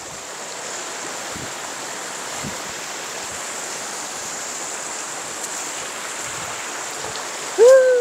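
Mountain stream pouring over a small rock cascade into a pool: a steady rush of water. Near the end a person gives a short, loud call that rises and then falls in pitch.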